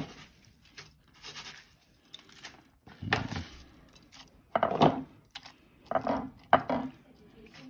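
Hands pressing a raw chicken cutlet into panko breadcrumbs and turning it in egg wash: about six short bursts of gritty rubbing and crunching, with pauses between them.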